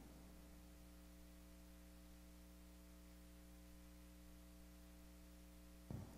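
Near silence with a faint, steady electrical hum. There is one short, faint sound just before the end.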